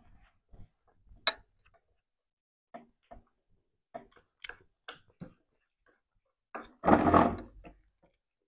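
Children eating noodles with chopsticks from paper bowls: scattered short clicks and mouth smacks, then one louder noisy burst lasting under a second about seven seconds in.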